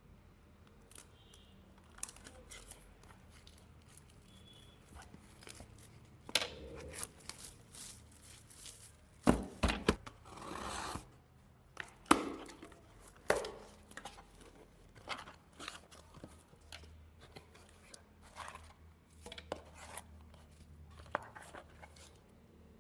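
Parcel packaging being opened by hand: plastic and paper torn and crinkled, with scattered sharp clicks and taps. There is a longer tear about ten seconds in.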